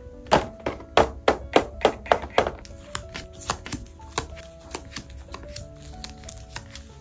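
A quick run of about eight sharp clicks from a small hard-plastic toy being handled, over soft background music. After that come quieter, scattered taps as sticker sheets in plastic sleeves are handled.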